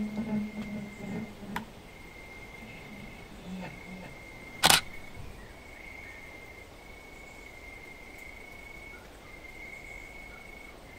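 The closing music fades out within the first second or so. A faint, steady high tone with short breaks is left. A single sharp camera-shutter click, the loudest sound, comes just under five seconds in.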